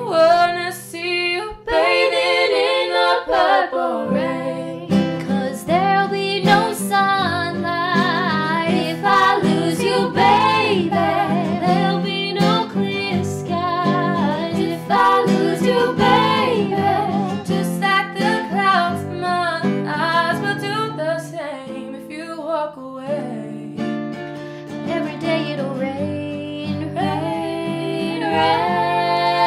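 Female singing with guitar accompaniment.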